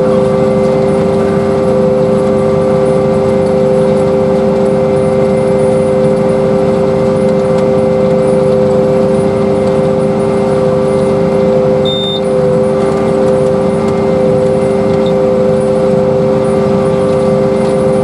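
Ploeger self-propelled pea viner running steadily as it harvests, a constant machine hum with a steady mid-pitched whine over it.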